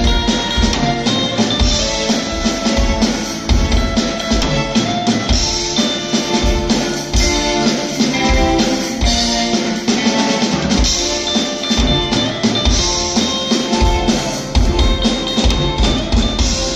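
Live rock band playing: a drum kit with kick drum and snare driving a beat under acoustic and electric guitars and keyboard.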